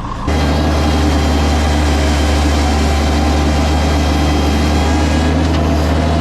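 Mini skid steer engine running at high throttle: a loud, steady drone with a deep hum, which steps up sharply just after the start and then holds.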